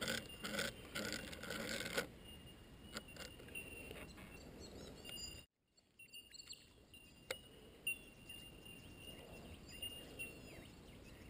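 Faint birds calling from the riverbank trees: short high chirps repeated again and again, with a few little whistled notes. Some rustling and clicks come in the first couple of seconds.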